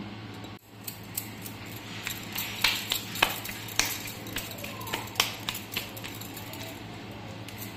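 Scattered light clicks and clinks as hands press and fold a filled rice-flour dumpling over steel plates, with bangles on the working wrists, over a low steady hum.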